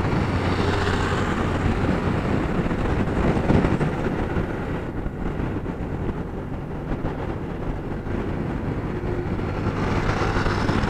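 Honda PCX 160's single-cylinder engine cruising at about 50 km/h: a steady engine hum with wind and road noise from the ride. It dips slightly quieter in the middle.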